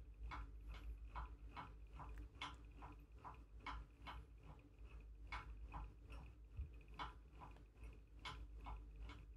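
Faint, even ticking, a little over two ticks a second, like a clock, over a low steady hum and a faint high tone.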